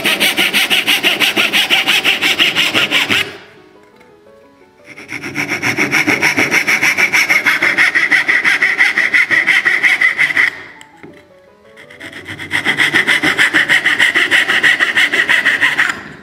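A dovetail saw cuts down the tail lines of a thin drawer side with fast, even strokes. It goes in three runs with short pauses between, one for each cut on the waste side of a tail.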